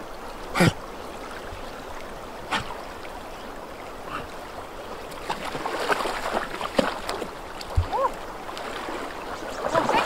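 Swift, shallow river current rushing steadily over stones, with scattered short splashes from two golden retrievers wading through the water.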